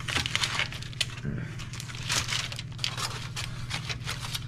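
Aluminium foil crinkling and rustling in irregular crackles as a spatula scrapes under baked fish on a foil-lined pan, over a steady low hum.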